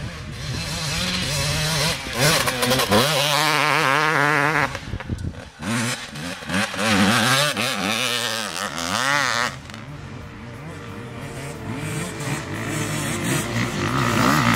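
Dirt bike engines revving hard on a steep hill climb, the pitch sweeping up and down as the bikes go past close by. There is a lull about ten seconds in, then another bike comes up.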